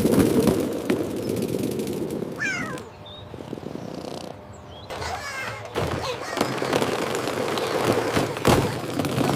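Cat meowing: two short wavering calls, about two and a half and five and a half seconds in, over a steady background noise.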